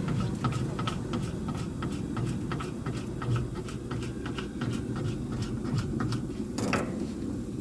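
Quick, irregular light taps and clicks of a metal cooking utensil, several a second, over a steady low rumble, with one broader scrape or clatter near the end.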